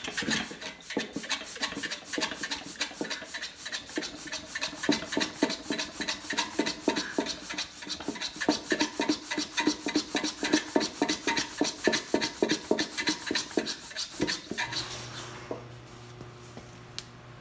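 Hand-operated plunger vacuum pump on a Topsider metal oil-extractor canister being worked in rapid, even strokes, building vacuum in the canister to suck engine oil out. The strokes stop about fourteen seconds in.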